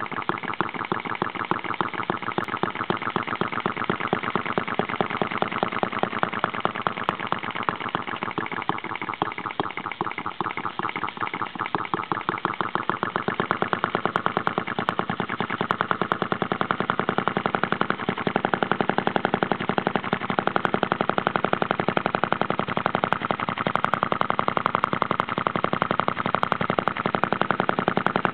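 Model single-cylinder air-cooled spark-ignition engine with twin flywheels running, firing in a fast, even string of sharp beats. The beats get louder about halfway through.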